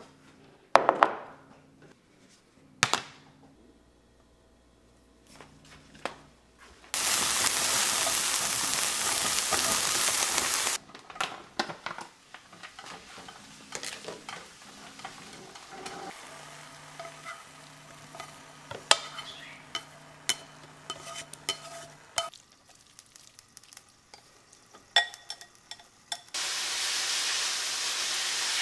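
Seasoned sliced meat frying in a pan on a gas stove and stirred with chopsticks. A loud sizzle breaks out about seven seconds in and lasts about four seconds, then settles to a quieter crackle with light clicks of the chopsticks on the pan. A second loud sizzle starts near the end.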